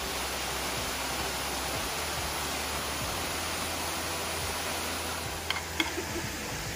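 Steady rushing and splashing of water from a small cascading waterfall spilling over rock ledges. A couple of short knocks come near the end.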